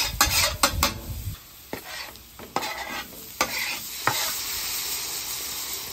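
Diced vegetables scraped off a cutting board onto a hot flat-top griddle, with several sharp taps of the board or spatula. A steady sizzle builds about halfway in as they fry on the steel.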